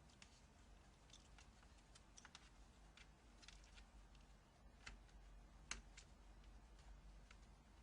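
Near silence with faint, scattered small clicks and taps from laptop parts being handled, one a little louder about three quarters of the way in.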